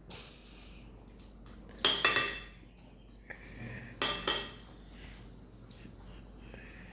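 Cutlery clinking and scraping against plates as mac and cheese is eaten, in two short bursts about two seconds in and again about four seconds in.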